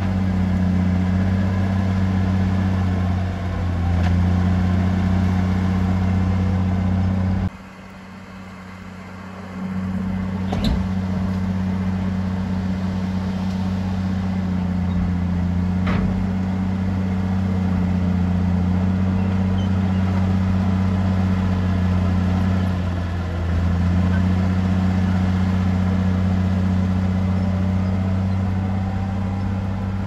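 Bulldozer's diesel engine running with a deep, steady drone. It drops away for about two seconds some seven seconds in, then returns, with a sharp knock soon after and another near the middle.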